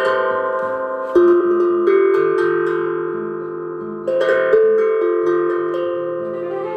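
Bell-like pitched instruments struck together, several notes ringing at once and slowly fading, then struck again about a second in and about four seconds in.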